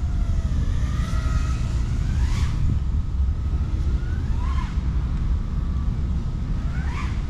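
FPV racing quadcopter's motors whining, the pitch sweeping sharply up three times as the throttle is punched, over a steady wind rumble on the microphone.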